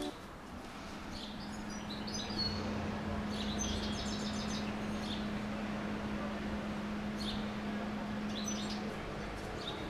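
Small birds chirping on and off over steady low urban background noise, with a constant low hum that stops near the end.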